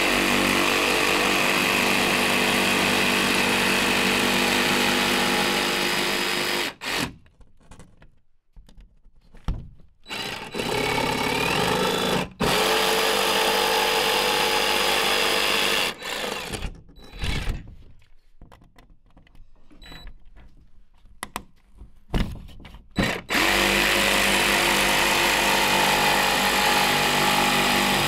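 DeWalt 20V cordless jigsaw cutting through a barn board sheathing panel in several runs: a long run at the start, shorter runs in the middle with quiet gaps between, and a final steady run near the end.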